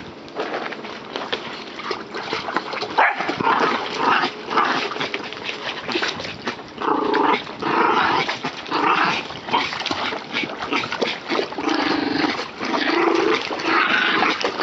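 Small dog whimpering and yelping in short repeated cries, roughly one a second, starting about three seconds in, over the splashing of a dog paddling in a small pool.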